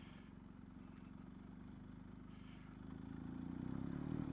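Motorcycle engine running at low revs, then the revs rise and it gets louder from about three seconds in as the bike accelerates.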